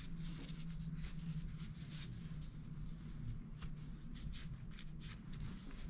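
Faint rubbing and scattered small clicks of a cloth shop towel wiping a small metal grinder part, the clump crusher, over a steady low hum.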